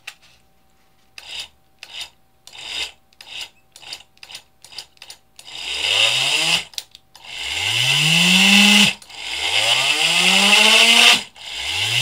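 Small brushed DC motor on a PWM speed controller, first kicked by a run of short button taps, then spun up four times. Each run rises in pitch to a steady whine with a rasping buzz and cuts off abruptly when the button is let go. The runs switch between clockwise and counterclockwise.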